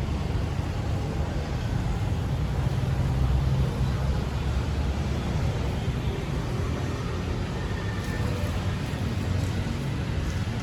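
Steady city street ambience dominated by a low rumble of passing traffic.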